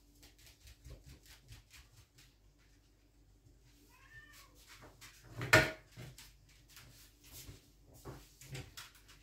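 A cat gives a short meow about four seconds in; a moment later comes a sharp, loud knock, the loudest sound, amid light clicks and clatter of kitchen things being handled.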